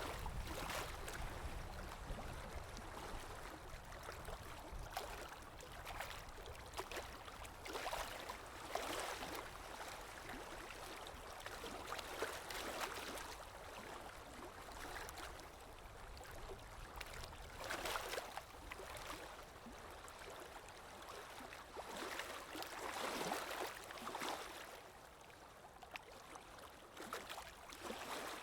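Water lapping in irregular small splashes over a low wind rumble.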